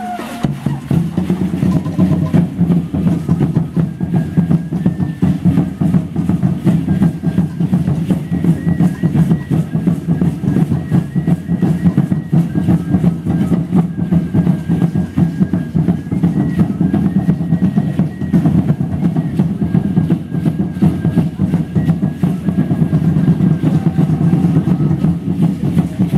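Fast, steady ceremonial drumming for Mexica (Aztec) dance, beating on without a break.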